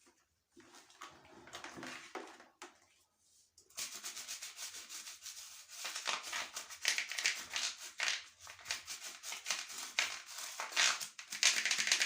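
Washing cloth scrubbing a shower head in quick back-and-forth strokes: light rubbing at first, a short pause, then about eight seconds of faster, louder scrubbing.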